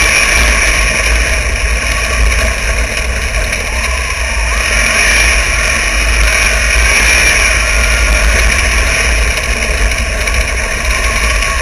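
Wingless dirt sprint car's engine running hard at racing speed, picked up by an onboard camera on the car, with steady wind rumble on the microphone.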